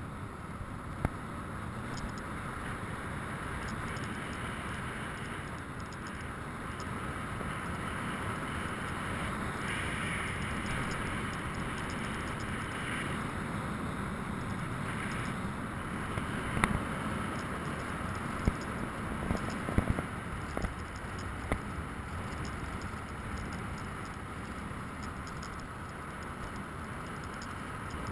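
BMW motorcycle riding a rough dirt track, heard on board: steady engine and wind noise, with a few sharp knocks from the bumpy track about two-thirds of the way through.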